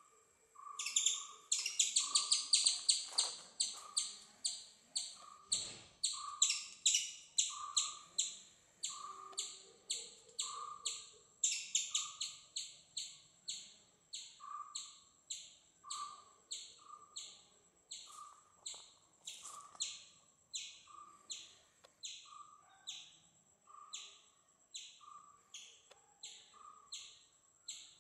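Birds calling: a long run of high, evenly repeated chirps that come very fast for the first few seconds and then settle to under two a second, over a lower note repeated about once a second.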